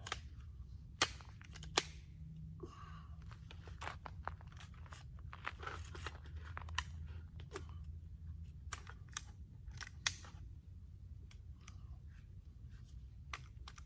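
Scattered metallic clicks and clacks of an AR-15 rifle being handled while a magazine that won't seat is worked into the magazine well. Two sharper clacks come about one and two seconds in, and another about ten seconds in.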